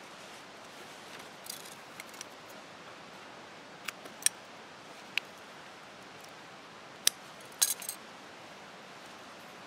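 Scissors snipping: a handful of short, sharp clicks as the blades close, trimming the ends of the tarred bank line stitching at a leather pouch, with some faint handling rustle.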